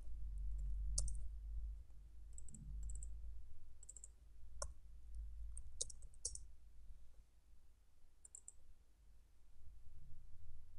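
Scattered clicks of a computer keyboard and mouse as a search term is typed and a result clicked, a dozen or so separate taps, over a low steady hum.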